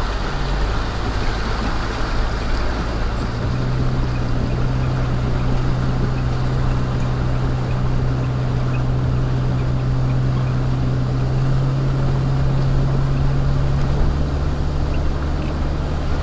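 Jeep Cherokee XJ's engine running steadily at low speed as it wades through a flooded dirt road, with water washing around the tyres. The engine's low hum grows steadier and louder a few seconds in.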